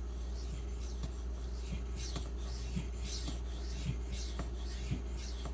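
Knife edge of Maxamet steel stroked back and forth across a 1000-grit diamond-bonded waterstone: a soft scraping rub about once a second, with faint ticks where the edge crosses the stone's raised printed lettering. A steady low electrical hum lies underneath.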